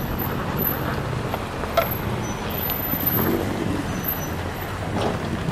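Off-road 4x4 engines running at low speed as the vehicles crawl over rocks, a steady low rumble with a few short knocks.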